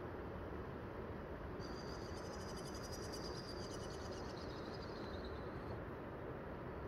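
A high-pitched, rapidly pulsed animal trill lasting about four seconds, dropping slightly in pitch toward its end, over a steady background noise.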